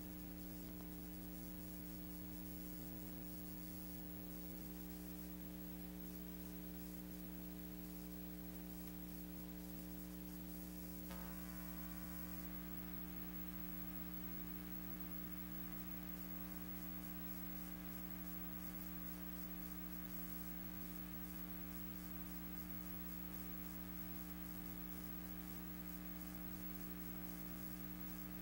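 Steady electrical hum with a faint hiss, with no sound of the guns being fired. About eleven seconds in, the hum turns brighter and buzzier.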